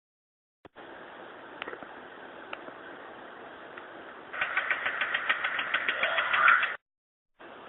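Faint recording hiss with a couple of clicks, then about four seconds in a louder rapid rattling of regular knocks, about seven a second, lasting some two seconds and cutting off abruptly.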